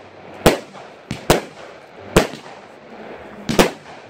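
Fireworks going off in quick succession: a multi-shot firework firing small shells into the air, a run of sharp bangs about once a second, two close together near the end.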